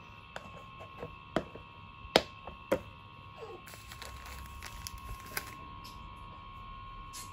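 Irregular light clicks and knocks of plastic baby bottles, breast-pump parts and a tissue pack being picked up and set down on a tabletop, the sharpest knock about two seconds in. A faint steady high whine runs underneath.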